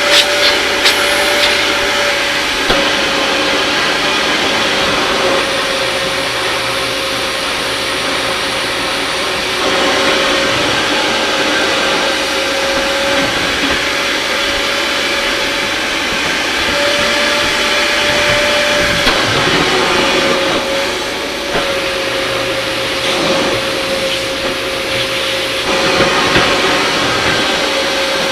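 Vevor 6.5-gallon, 1200 W wet/dry shop vacuum running steadily, its motor whine holding one pitch and sagging briefly now and then as the suction load changes.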